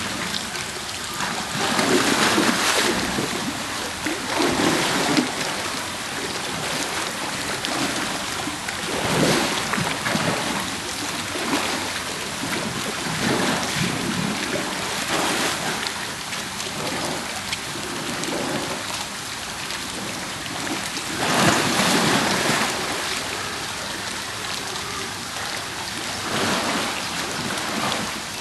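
Pool water splashing and churning as two polar bear cubs wrestle in it, with a steady rush of water and louder splashes every few seconds, the biggest about two-thirds of the way through.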